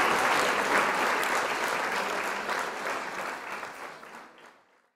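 Applause, a crowd clapping steadily, fading out and ending about four and a half seconds in.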